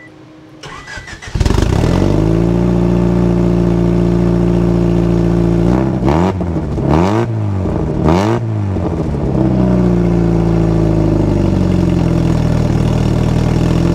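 Turbocharged single-cam engine of a Honda Civic RT4WD wagon starting about a second in, then idling steadily. It is revved three times in quick succession near the middle before settling back to idle, running through its freshly welded downpipe flex pipe.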